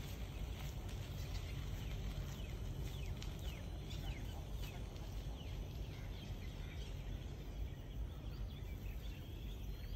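Outdoor ambience: birds calling with short, falling chirps, thickest in the first half, over a steady low rumble.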